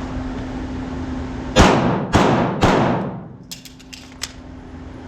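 Three semi-automatic handgun shots about half a second apart, each with a ringing tail, fired at the start of an IDPA stage. A few faint clicks follow in the pause about a second later.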